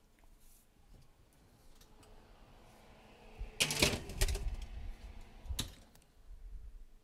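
A metal baking tray clattering and rattling as it is slid onto an oven rack, about three and a half seconds in, followed by a sharp knock near six seconds as the oven door is shut.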